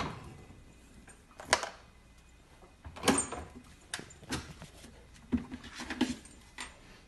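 A husky puppy clambering into an open refrigerator, with scattered knocks and rattles from the fridge's shelves and door bins about once a second.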